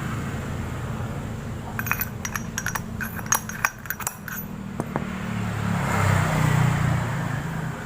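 Metal parts of a scooter's CVT rear pulley clinking and tapping together as they are handled and fitted, with a quick run of sharp clinks about two to four seconds in. A steady low hum runs underneath.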